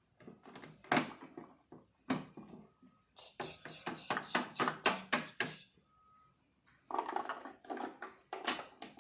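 Quick plastic clicks and rattles from a toy washing machine as washing powder is added, coming in two fast runs about three seconds in and near the end, with a few single knocks before them and a couple of short faint beeps.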